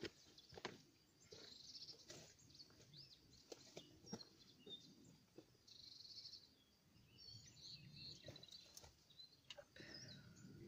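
Faint birdsong from small wild birds: short high chirps and curling calls, with two brief rapid trills, one near the start and one about halfway. Scattered light clicks and rustles sound under it.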